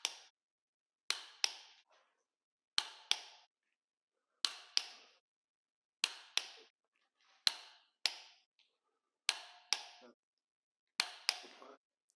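Torque wrench clicking as it breaks over at the set torque on each head bolt, tightening ARP head bolts to 50 foot-pounds in sequence. Each bolt gives a sharp double click, seven times, about every second and a half.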